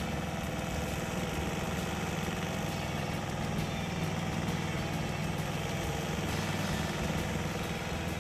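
GreenMech StumpMaster 500 stump grinder running at a steady engine speed, its cutting wheel at the stump.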